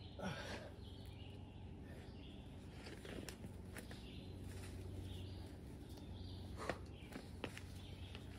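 Faint bird calls over quiet outdoor background, with a few sharp taps and scuffs from a climber's shoes and hands on the rock; the loudest tap comes about two-thirds of the way through.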